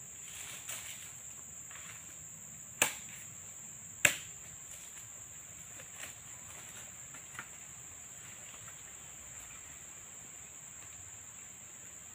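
A steady high-pitched drone of insects, broken by two sharp knocks about a second apart near the third and fourth seconds, and a few faint ticks.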